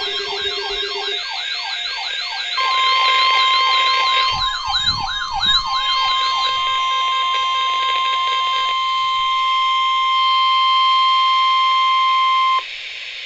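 Several electronic sirens yelping, sweeping quickly up and down in pitch, fading out about six to eight seconds in. From about two and a half seconds in, the NOAA Weather Radio 1050 Hz alert tone sounds steadily for about ten seconds and cuts off abruptly. This is the alarm that announces a Weather Radio warning message.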